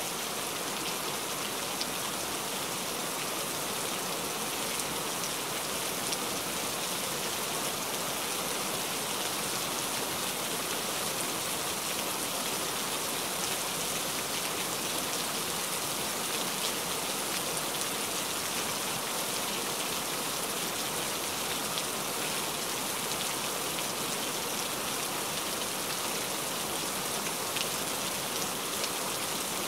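Steady heavy rain falling on ground and foliage, a dense even hiss with fine scattered drop patter.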